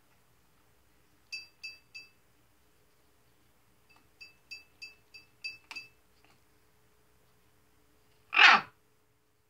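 Blue-and-gold macaw giving short, high pips, three and then about seven more in a quick run, then one loud, harsh, short burst near the end.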